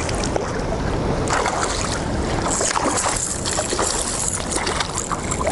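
Steady rushing of river water below a dam, with wind on the microphone and faint scattered clicks.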